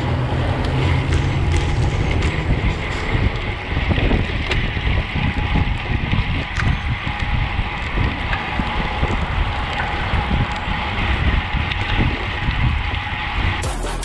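Wind buffeting the microphone of a camera mounted on a road bike riding at speed, a dense, uneven rush with road noise under it. Just before the end it cuts to electronic music.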